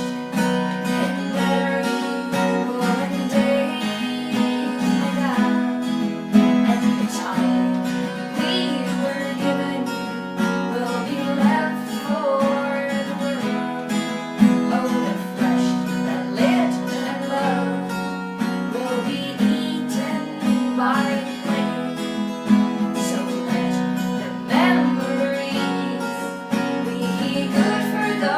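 Acoustic guitar strummed and plucked, playing a song with steady sustained low chords.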